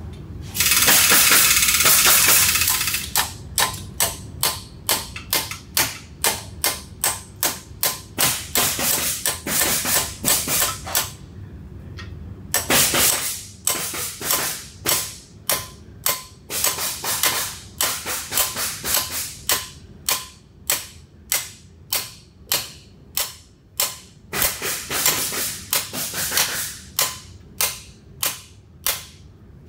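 Hammer blows on a metal bearing driver, tapping new bearings into a Mud Buddy mud-motor lower unit housing, with the driver resting on the inner race. After about two seconds of continuous loud noise at the start, sharp metallic strikes follow at about two a second, with a short pause about halfway through.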